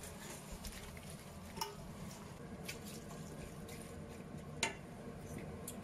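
Tripe strips, bacon and tomatoes being stirred in a soup pot with a plastic spatula: soft, wet stirring with two light knocks of the spatula on the pot, about one and a half and four and a half seconds in.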